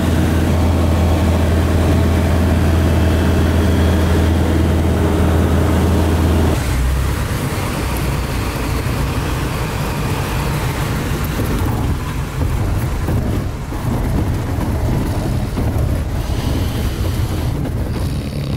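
Small bush plane's piston engine and propeller droning steadily, heard from inside the cabin in flight. About six and a half seconds in it changes suddenly to a lower, rougher, pulsing engine sound with the plane on a dirt airstrip.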